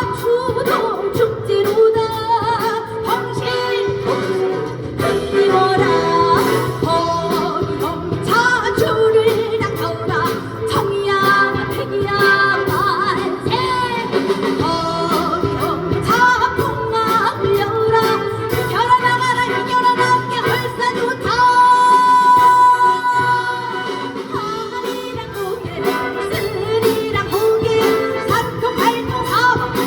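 A woman singing a Korean trot song over an upbeat band accompaniment, her melody bending and sliding between notes, with one long held high note about two-thirds of the way through.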